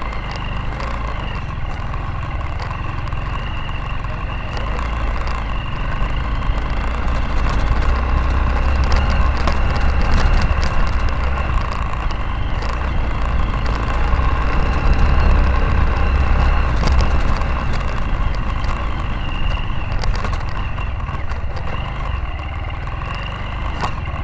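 Motorcycle engine running while riding over a rutted dirt road, louder in the middle stretch, with frequent knocks and rattles from the bumps.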